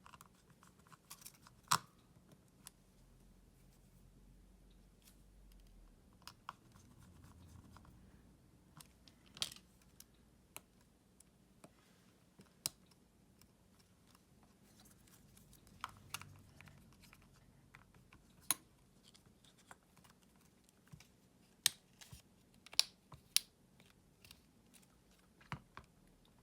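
Irregular small clicks and taps of hand tools and parts being handled while a Samsung S24 smartphone is worked on, a few sharper clicks standing out, several of them close together near the end.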